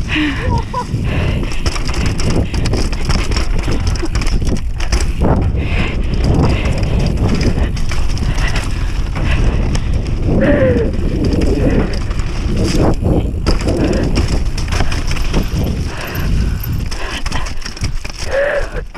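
Downhill mountain bike running fast over a dirt trail: a steady rumble and crunch of the tyres on dirt and stones, with rattling knocks from the bike over bumps.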